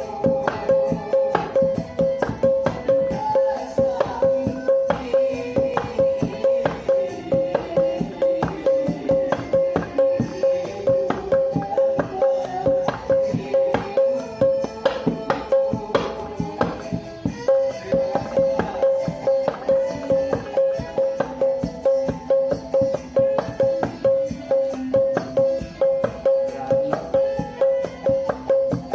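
Fast koplo-style hand drumming on paint cans, imitating a kendang, with a steady dense rhythm of strikes over melodic dangdut-style music.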